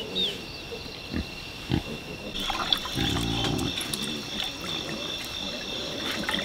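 A farm animal grunting, low and short, with one longer grunt about three seconds in. Over it runs a steady high buzz of insects.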